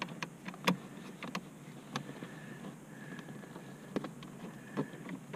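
Scattered light clicks and taps at irregular intervals, the loudest about two-thirds of a second in, from a socket ratchet and screws being worked loose.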